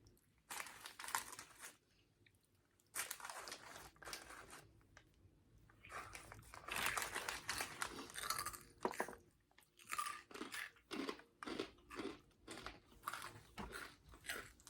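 Crunchy snack mix of corn puffs, chips and nuts being chewed: a run of short crunches, sparse at first, then steady at about two a second in the second half.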